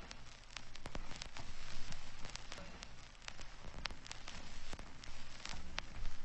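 A soft, steady crackling hiss with scattered, irregular clicks and pops and a faint low hum underneath.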